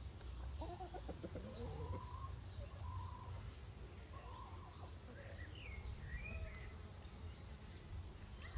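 Chickens clucking, with a run of short low calls in the first few seconds, and small wild birds chirping in the background a little past the middle.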